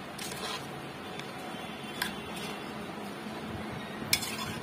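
A spoon stirring sliced onions, herbs, whole spices and water in a pressure cooker pot, with a few light clinks of the spoon against the pot; the sharpest clink comes near the end.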